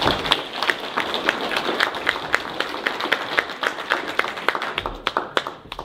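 Audience applauding, the claps thinning out and fading near the end.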